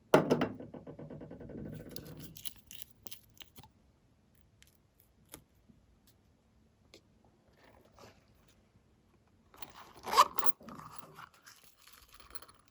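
Glossy slime being squished and mixed by hand, with sticky crackling and clicking. It is loudest at the start, where it fades over a couple of seconds, and again near the end, with only small scattered clicks in between.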